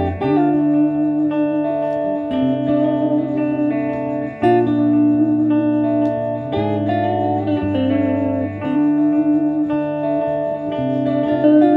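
Two guitars playing together: low notes changing every second or two under a sustained melody line.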